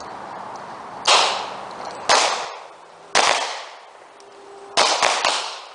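Gunshots on a firing range: three single shots about a second apart, then a quick string of three near the end, each trailing off in an echo.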